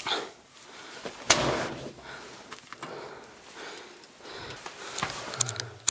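A small door covering a cave entrance being unfastened and opened by hand: one sharp knock about a second in, then a few lighter clicks and knocks near the end.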